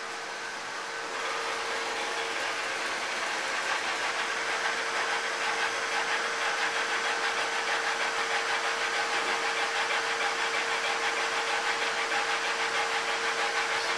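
Epilog Mini laser engraver running an engraving job: a steady machine hum with a fixed tone under it, and a rapid, even pulsing as the laser head sweeps back and forth across the bottle. It gets louder a second or so in and settles into the steady pulsing after about four seconds.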